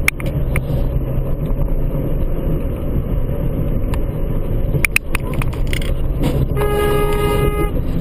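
Steady road and engine rumble inside a moving car, with a few short clicks. Near the end a car horn sounds one steady blast of about a second.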